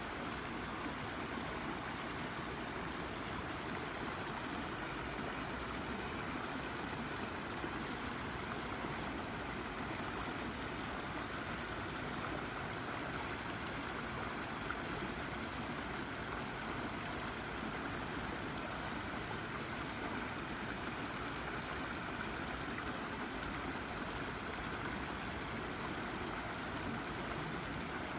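Brook water babbling and trickling over a rock, steady throughout.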